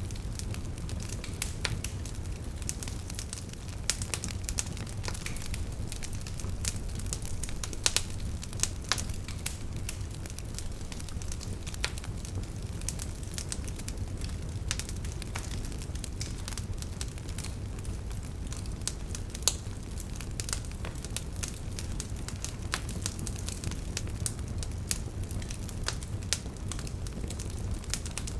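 Crackling fire: frequent irregular sharp pops and crackles over a steady low rumble.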